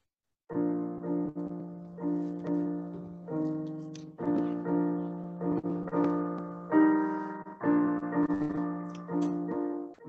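Solo piano playing slow chords, starting about half a second in; each chord is struck, rings and fades before the next, roughly one to two a second.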